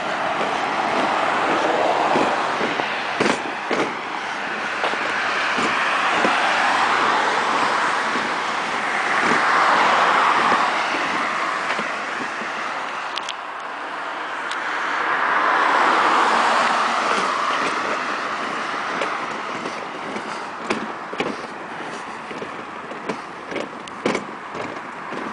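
Cars passing on a nearby road, each one's tyre and engine noise swelling and fading as it goes by, the loudest about ten and sixteen seconds in. Scattered short clicks and knocks throughout, more frequent near the end.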